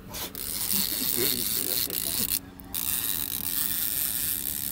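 Fishing reel clicking in a fast, continuous ratchet while a hooked striped bass is played on the rod, breaking off briefly about two and a half seconds in and then resuming.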